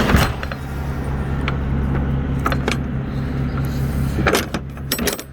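A vehicle engine idling with a steady low hum, with scattered sharp clicks and metallic clanks, the loudest a cluster about four seconds in.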